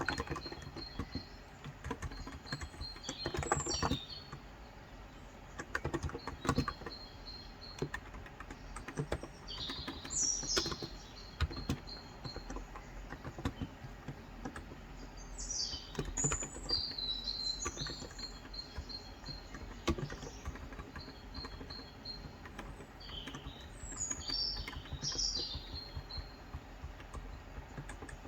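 Keystrokes on a Cox Endeavor electro-capacitive (Topre-style) 35 g tenkeyless keyboard, typed in scattered bursts. Small birds chirp throughout in trills of quick repeated notes and short rising and falling calls.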